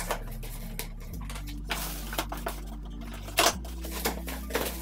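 A small blade slitting and scraping the packing tape along the top of a cardboard box, heard as a run of short, sharp scratches and clicks as the cardboard is handled.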